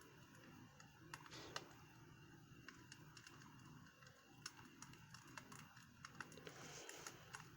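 Faint campfire ambience: irregular small crackles and pops of burning wood over a soft low hiss.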